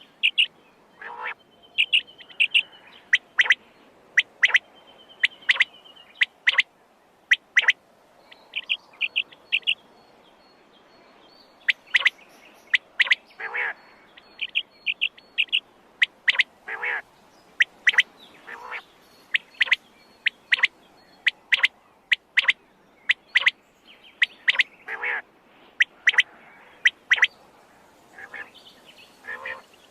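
Quail calling over and over: short, sharp, high notes, often in quick runs of three, with some lower, fuller calls mixed in.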